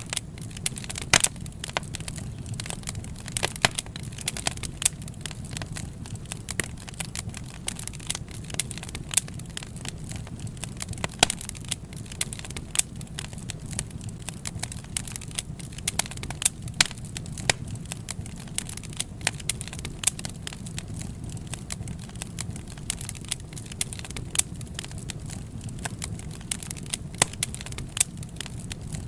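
Wood fire burning, with irregular sharp crackles and pops of the burning logs over a steady low rumble of the flames.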